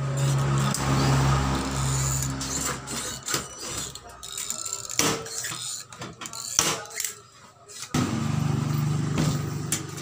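Sharp metallic clicks and knocks from a hand riveter and a galvanised sheet-metal toolbox being handled, loudest a few seconds in. A steady low hum runs under the first few seconds and comes back near the end.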